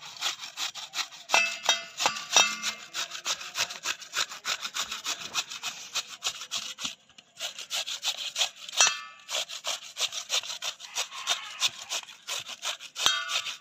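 Raw potato being grated on a flat stainless-steel hand grater: quick, even rasping strokes, several a second, with a short break about seven seconds in.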